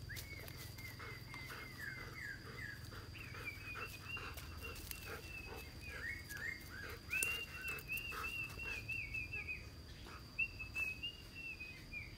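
Dog whining: a continuous high-pitched whine that wavers in many short dipping notes, rising a little higher in pitch partway through.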